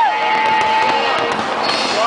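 A huge crowd cheering and calling out, with long held shouts and a few faint pops from a fireworks display.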